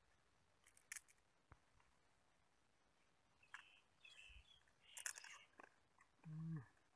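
Quiet handling sounds: a few short rustles and clicks as small crabs are picked up and put into a bowl on the grass, the loudest just past the middle. Near the end comes a brief low hum.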